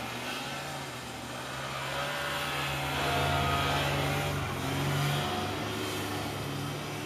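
A vehicle engine running, its steady hum swelling louder for a few seconds midway and then easing back.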